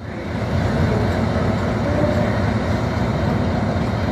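Class 60 diesel locomotive's eight-cylinder engine running with a steady, low-pitched sound.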